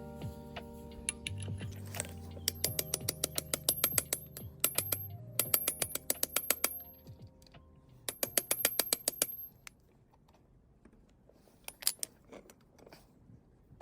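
Socket ratchet clicking in three quick runs of about six clicks a second, as a bolt is turned by hand, with a few single clicks near the end.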